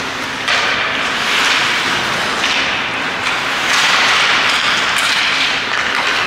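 Ice hockey play: skate blades scraping and carving the ice in repeated surges, with a few sharp clacks of sticks and puck.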